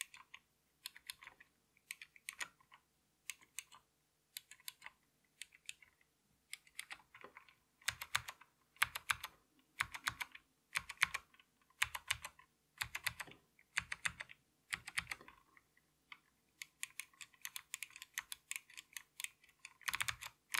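Typing on an Ortek MCK-84 keyboard with vintage SKCM Blue Alps switches: quick bursts of clicky keystrokes, each a low-pitched click with a chunky bottoming-out thunk. The strokes grow louder and heavier from about eight seconds in, with a brief pause near the end.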